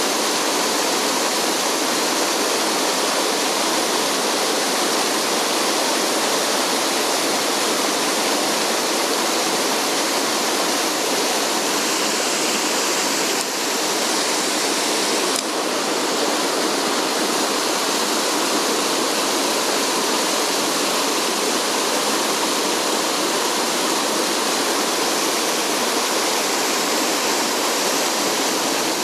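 Mountain stream rushing over rocks: a loud, steady rush of water that barely changes.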